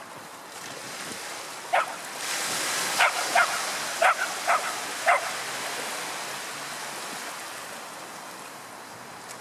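A dog barking, six short sharp barks between about two and five seconds in, over the wash of small waves breaking on the shore.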